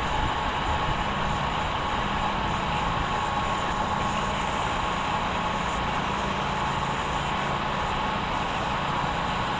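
Strong wind rumbling on the microphone, steady throughout, with a constant high whine running under it.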